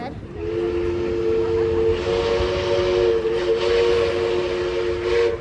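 Steam whistle of NSW 59 class 2-8-2 locomotive 5917, held in one long steady blast of about five seconds: a chord of several tones with a hiss of steam behind it.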